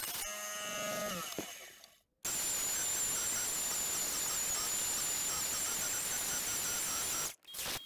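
Bandsaw: over the first two seconds its motor winds down, with several steady tones falling and fading out. After an abrupt break it runs with a steady hiss and a high, slightly wavering whine, trimming glued-in dowels flush.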